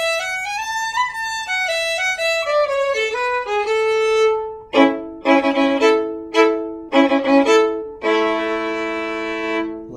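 Fiddle playing a tune ending in the key of A: a falling run of notes, then a string of short bowed strokes with double stops, closing on a long held note.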